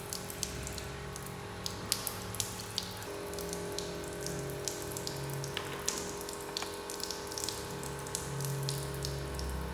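Water drops falling in scattered, irregular ticks, several a second, over a low steady hum.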